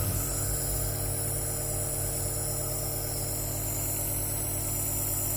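Nebulizer compressor running with a steady hum and a high hiss of air, driving the medicated mist for a child's cough-and-cold inhalation.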